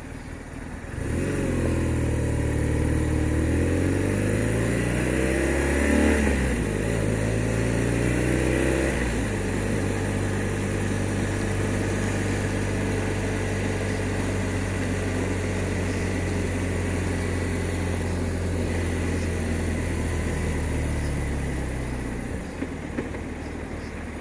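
BMW R1200 RT's flat-twin engine pulling away and accelerating, its note climbing and dropping back at gear changes, then running steadily at cruising speed before the throttle closes and it falls away near the end.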